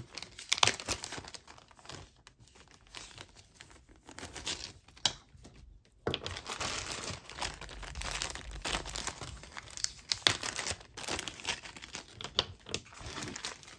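Clear plastic zip-top bags crinkling and rustling as they are handled, in irregular spurts that drop away briefly about halfway through.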